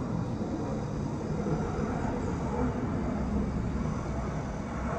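Outdoor background noise: a steady low rumble of distant engine noise, like far-off traffic.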